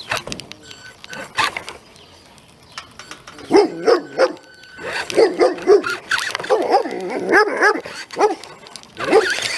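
Dog barking loudly in rapid runs of short barks, starting about three and a half seconds in.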